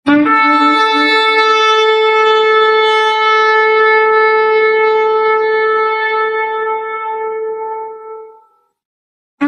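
A shofar sounded in one long, steady blast held on a single pitch. A rougher lower note sits under it for about the first second and a half, and the blast fades out after about eight seconds. A second blast starts right at the end.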